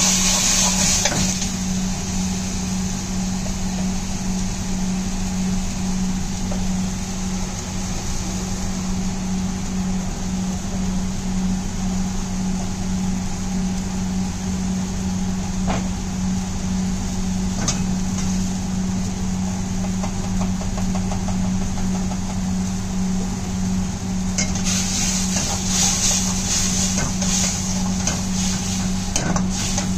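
Chicken 65 being stir-fried in a carbon-steel wok on a gas burner, over a steady low mechanical hum from the kitchen equipment. Hot-oil sizzling rises near the start and again for the last five seconds as the chicken is tossed in the sauce. The ladle clinks against the wok a couple of times midway.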